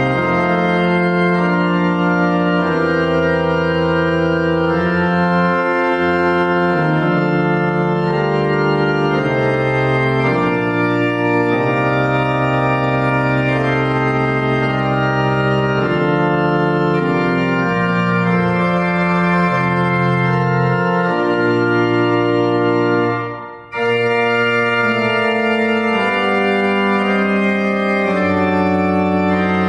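Church organ playing a slow voluntary of sustained, changing chords. About three-quarters of the way through it breaks off for a moment, then a new phrase begins.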